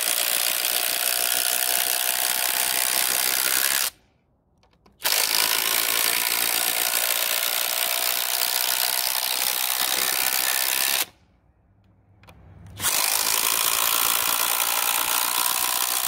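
Kobalt XTR 24V brushless impact driver hammering 6-inch TimberLOK screws into wood at full speed. It goes quiet twice for a second or two, once about four seconds in and again about eleven seconds in, between one screw and the next.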